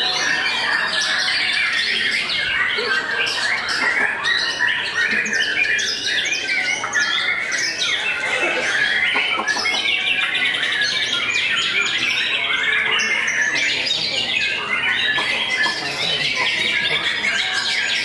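White-rumped shama (murai batu) singing continuously: a varied song of quick whistled phrases and chatter, with a run of fast trilled notes about halfway through.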